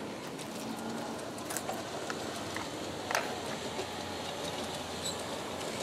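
G-scale Aristo-Craft model passenger train, pulled by E9 locomotives, rolling along outdoor track: a steady low rolling noise with scattered light clicks, the sharpest a little after three seconds in.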